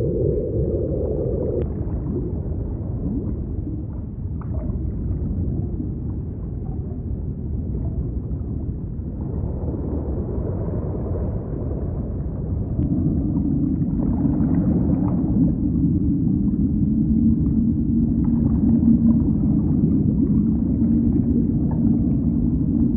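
Deep underwater rumble with long, low, drawn-out whale-like moans. A higher held tone fades out at the start, and a lower, steady moan comes in about halfway through and carries on.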